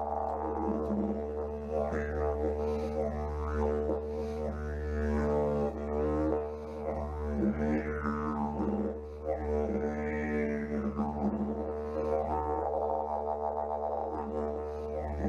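Didgeridoo music: a steady low drone with overtones that keep sweeping and shifting over it.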